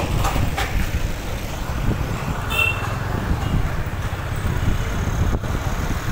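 Steady low rumble of road traffic and engines in a crowded street, with a short high-pitched beep about two and a half seconds in.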